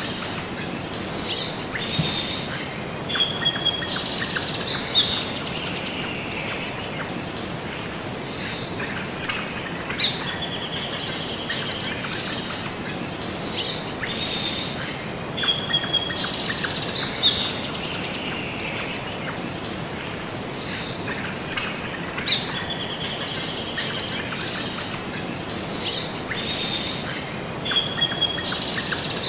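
Several birds chirping and trilling over a steady hiss. The same run of high calls repeats about every twelve seconds: a looped birdsong background track.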